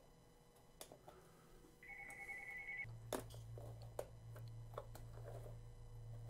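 Sharp clicks as the back cover of an EVGA SC15 laptop is pried up by hand and its clips snap loose, the loudest about three seconds in. About two seconds in, a steady electronic ring-like tone sounds for about a second, and a low steady hum starts right after it.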